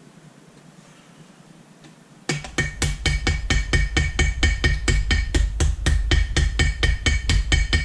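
Small ball-peen hammer tapping quickly and evenly on gasket paper laid over a metal casting, about five taps a second with a light metallic ring, punching out a paper gasket along the casting's edge. The tapping starts about two seconds in, after a quiet start.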